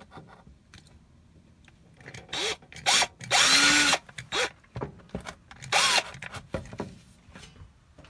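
Cordless drill boring a hole through a wood-grain cabinet panel in several short trigger bursts, starting about two and a half seconds in and ending around six seconds. The motor's whine rises and falls in pitch with each squeeze, and the longest burst comes around the middle.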